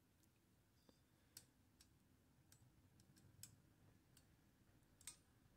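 A handful of faint, irregular metallic clicks from a steel spring hook and a small spring being worked back onto a tabulator rod of a Torpedo Dynacord S typewriter, over near silence.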